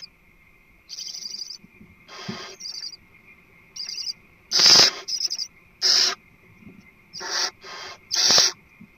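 Barn owl giving a string of about eight short, harsh hissing screeches, the loudest about halfway through, over a faint steady high tone.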